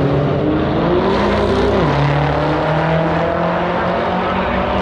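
Street race cars' engines running loud at steady revs, with one step down in pitch about two seconds in.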